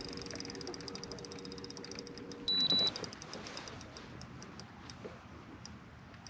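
Spinning reel's drag clicking rapidly as a big fish pulls line off, the clicks slowing and thinning out as the run eases. A steady low hum stops about two and a half seconds in, and a short high beep sounds at the same moment.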